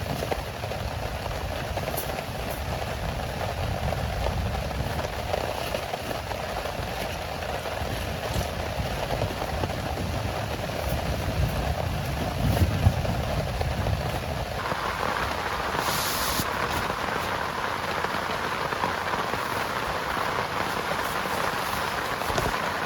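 Heavy rain falling as a steady hiss with a low rumble beneath it; about fifteen seconds in the sound changes abruptly to a brighter, higher rain hiss and the rumble drops away.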